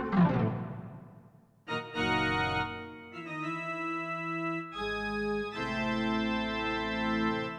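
Roland XP-10 keyboard synthesizer playing factory presets: a chord dies away over the first second and a half, then after a short gap a series of held chords is played, changing three times and released near the end.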